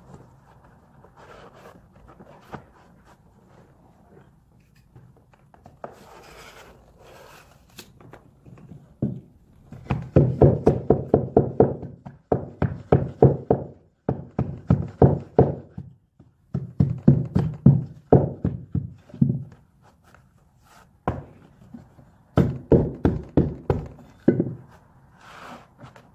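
Rapid hammer taps knocking a carpet tile down on a stair tread under the stair nosing: quick runs of dull thuds, about five or six a second, in bursts of one to two seconds with short pauses. Before the taps begin there is faint rustling as the tile is handled.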